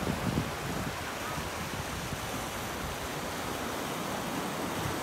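Sea surf washing against a rocky shore, a steady rush of water, with a brief low rumble in the first half second.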